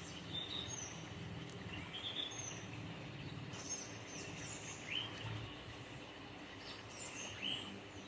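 Small birds chirping in the background, short high calls every second or two, over a faint steady low hum.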